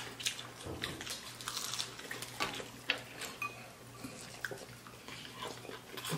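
Chewing and lip smacking on fried chicken wings, with scattered small clicks and taps of bones and fingers against the plate.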